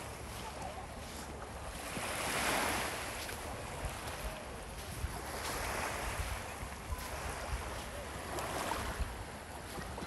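Small waves washing onto a sandy shore, swelling and easing every few seconds, with wind on the microphone.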